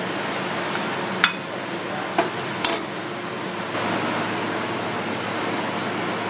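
Kitchen clatter: three short sharp clinks of dishes or utensils, the last two about half a second apart, over a steady rushing background noise.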